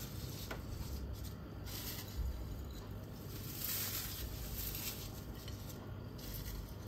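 Faint rustling and crunching of crisp fried onions (birista) being broken up by hand and dropped into the chicken marinade.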